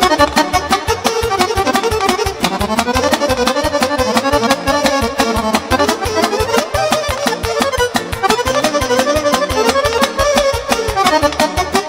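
Fast instrumental dance music with no singing: a wavering lead melody over a quick, steady, driving beat.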